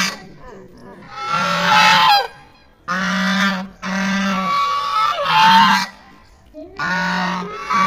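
Domestic geese honking, about five loud, harsh calls in a row, each under a second long, with short gaps between them.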